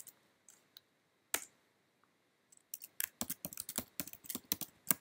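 Typing on a computer keyboard: one keystroke about a second in, then a quick run of keystrokes from about halfway through, as a sudo password is typed in.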